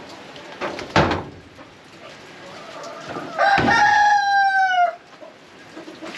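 A rooster crowing once, one drawn-out call of about a second and a half that sags in pitch toward its end, starting just past the middle. A sharp knock comes about a second in.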